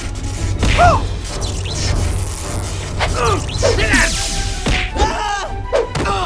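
Cartoon fight sound effects over background music with a steady bass: whooshes and several sharp whacks of an axe swinging and striking, mixed with short cries from the characters.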